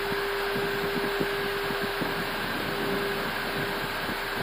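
Steady flight-deck noise of an Airbus A320 on final approach with gear down and flaps full: an even rush of air with a constant hum over it and an uneven low rumble beneath.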